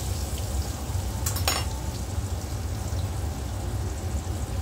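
Rounds of flour dough (arepas) frying in hot oil in a frying pan, a steady sizzle, with a single metal click of a fork about a second and a half in.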